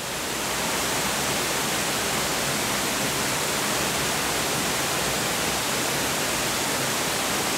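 Roar of a waterfall: a loud, steady rush of water that swells up over the first second and then holds even.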